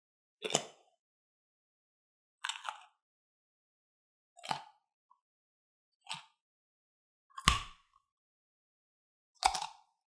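Broken-bone crack sound effect: six short, sharp cracks about two seconds apart, with silence between. The crack about seven and a half seconds in is the loudest and heaviest.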